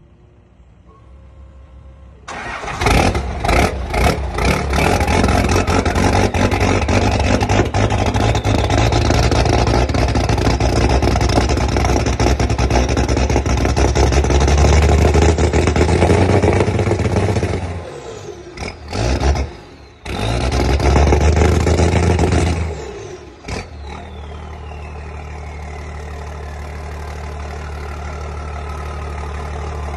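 Diesel pickup truck's engine revved hard from idle about two seconds in, held at high revs with a few sharp blips, then dropped and revved again briefly before settling back to a steady idle. As it settles, the turbocharger's whistle winds down, falling steadily in pitch.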